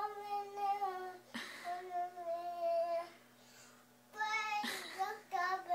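A toddler's voice singing or vocalising in long, held, sing-song notes, about four in a row with short breaks between them.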